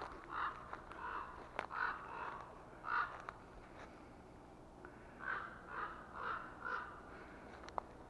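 Crows cawing in short runs of harsh calls: about five caws, a pause of about two seconds, then four more. They are scolding an intruder near their nest.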